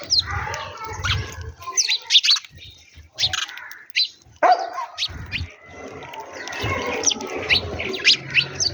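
A flock of sparrows chirping: many short, sharp chirps overlapping in quick succession, with low thumps underneath.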